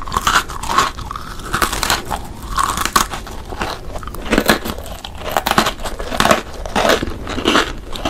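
Chocolate-coated biscuit sticks being bitten and chewed close up: a run of crisp crunches, one after another.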